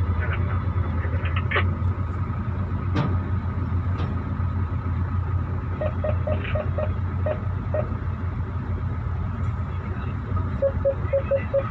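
Hino 500 FM 260 JD truck's diesel engine running steadily with a low hum. Twice, a quick run of short beeps sounds over it: once a little past the middle and again near the end.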